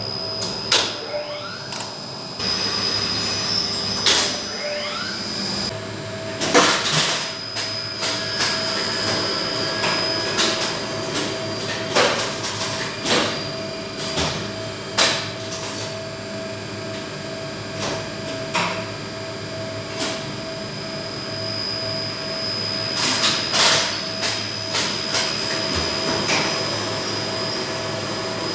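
Relays in a 1971 Flohr Otis relay-type lift controller clicking and clacking in irregular clusters, over a steady machinery hum with a constant high whine.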